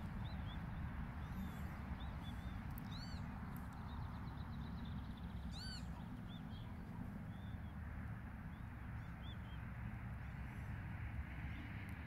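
Northern lapwings calling in flight: a series of short, arched, wheezy calls, with two louder ones about three and six seconds in, over a steady low rumble.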